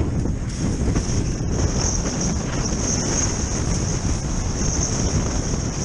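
Strong wind buffeting the microphone of a body-mounted action camera while snowkiting on skis: a loud, steady rumble, with a thin high hiss above it that strengthens about a second in.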